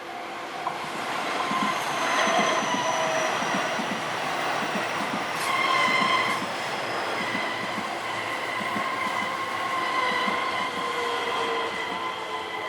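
An electric train on the JR Kyoto Line passes over a level crossing. Its wheels give high, steady squealing tones over a fast, rhythmic clatter of wheels on the rails.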